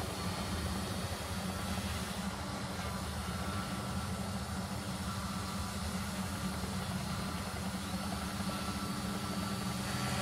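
Steady, low engine-like rumble from the quadcopter's sound-effect unit, an idling motor sound that runs on evenly; a faint high tone comes in near the end.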